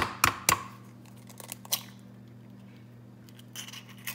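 An egg being cracked: three sharp knocks of the shell in quick succession, then fainter clicks as the shell is broken open, over a low steady hum.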